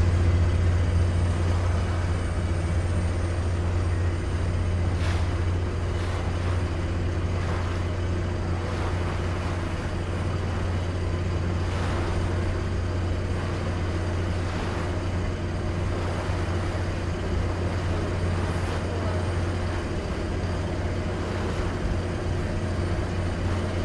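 Vaporetto water bus engine running steadily under way, a low even drone, with the rush of water along the hull.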